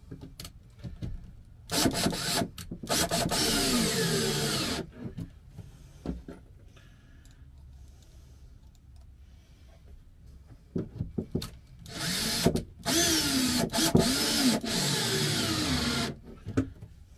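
Cordless drill driving screws up through brackets into a wooden countertop, in two runs of a few seconds each. Each run is a short burst and then a longer one, with the motor's pitch wavering as the trigger is worked. Small handling clicks come in between.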